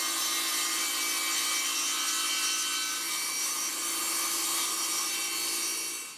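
Belt-driven table saw ripping a board along the fence, the blade cutting steadily without a break.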